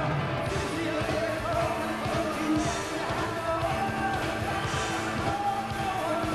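A rock band playing live, with a male singer singing into a microphone over the band.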